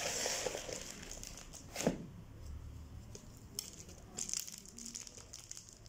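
Potting mix being scooped with a small plastic pot and poured into a larger plastic pot, with plastic crinkling and gritty rustling, and one sharp knock just under two seconds in.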